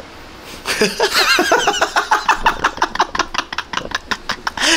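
Two men laughing hard: after a brief quiet moment, a fast, high-pitched run of laughs, ending in a loud outburst.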